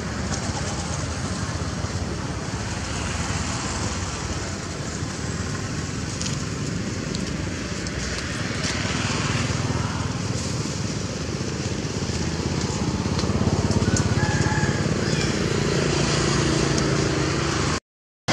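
Steady outdoor background rumble and hiss with no single clear source. It drops out to silence for a moment near the end.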